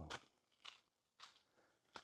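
Faint footsteps at a walking pace, four steps.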